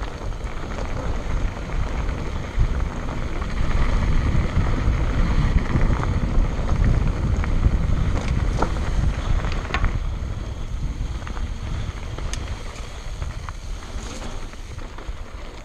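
Wind buffeting the microphone and mountain bike tyres rolling over loose gravel and dirt on a fast trail descent. The rumble swells in the middle and eases toward the end, with a few sharp clicks and knocks along the way.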